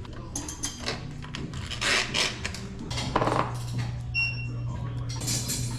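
Metal bicycle tools and parts clinking and clattering irregularly during repair work, over a steady low hum. About four seconds in there is a brief ringing ping.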